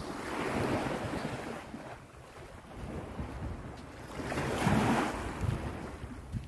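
Small sea waves breaking and washing up a sandy beach, two surges about four seconds apart, the second louder, over a low wind rumble on the microphone.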